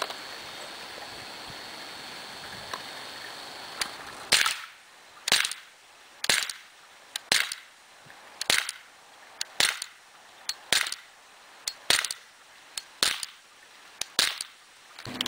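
Beretta PX4 Storm CO2 air pistol firing at a steady pace: about ten sharp shots, roughly one a second, starting about four seconds in. Most shots are followed closely by a smaller tick.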